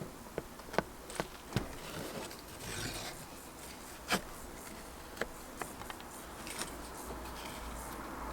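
Condor Terrasaur knife carving a stick: irregular sharp clicks of the blade biting into the wood over faint scraping.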